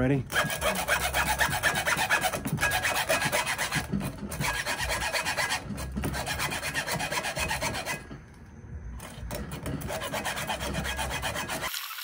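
Hacksaw sawing back and forth through a coiled steel cable bike lock, its blade through the plastic coating and into the metal strands: a steady rhythmic rasp of strokes, with a brief pause about two-thirds of the way through.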